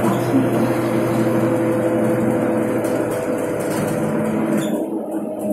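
Renault 12M city bus heard from inside the passenger cabin while driving, its diesel engine droning steadily over road and tyre noise. Near the end the hiss fades and the engine note shifts as the bus eases off.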